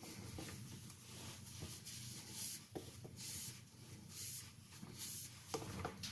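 Faint rubbing and rustling handling noises, irregular, with a couple of small clicks.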